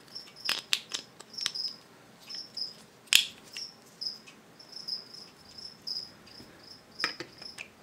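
A cricket chirping in short high-pitched pulses that repeat through the whole stretch, with a few sharp clicks scattered among them.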